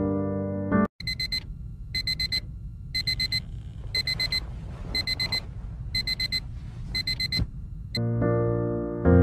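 Phone alarm beeping: a group of four quick high beeps once a second, about seven times, then cut off about eight seconds in. Music plays before and after the beeping: a held chord at the start, then piano.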